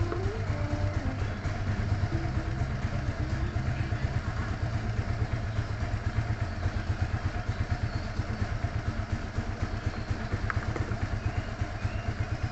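Motorcycle engine idling steadily, a low, evenly pulsing hum.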